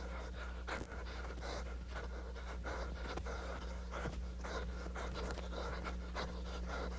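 A man panting hard and fast from running while dribbling, with quick scuffing strokes mixed in, over a steady low hum.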